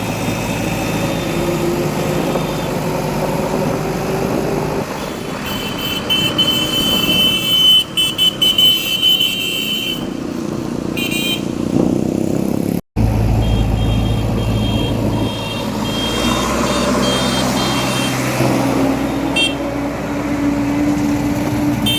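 Heavy diesel machinery running, a backhoe loader and tractor engines at work, with a shrill steady tone coming and going on top. The sound cuts out for an instant about thirteen seconds in and resumes with a deeper engine note.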